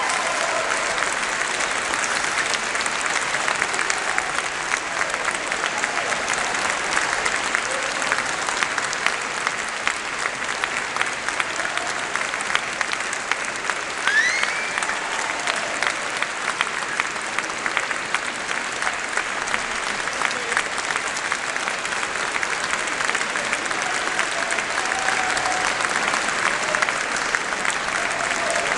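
Audience applauding, a dense, steady clapping that keeps going without a break, with a short rising whistle about halfway through.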